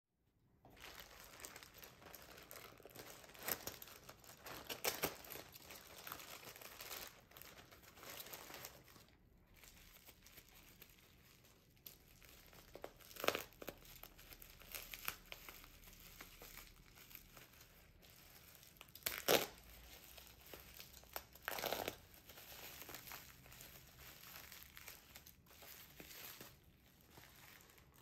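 Plastic parcel wrapping crinkling and rustling as it is cut and torn open with a utility knife, with several louder sharp rips.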